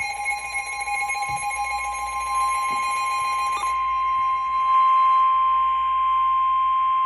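Emergency Alert System attention tone: a loud, steady electronic alert tone sounding two pitches together for about the first three and a half seconds, then a single steady tone. It signals the start of a severe thunderstorm warning broadcast.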